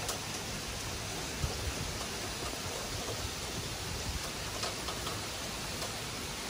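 Heavy rain pouring down in a steady hiss, with a few faint taps of single drops.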